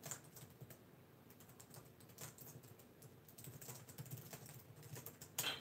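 Typing on a laptop keyboard: faint, irregular key clicks.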